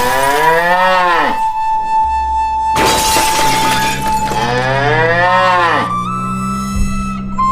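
Two cow moos, each one long call that rises and falls in pitch, played over steady background music. Between them, about three seconds in, there is a loud burst of noise.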